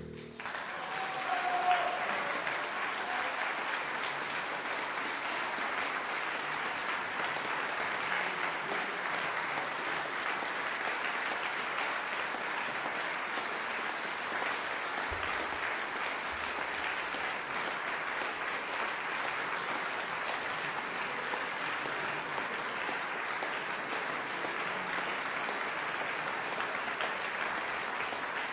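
Audience applauding steadily, with one brief louder cry from a listener about a second and a half in.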